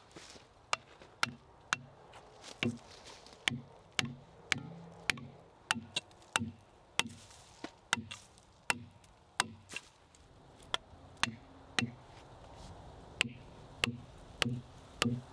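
An axe striking plastic felling wedges into the saw cut of an oak log, about one to two sharp knocks a second with a short pause a little past the middle. The wedges are being driven to open the kerf and free a pinched chainsaw bar.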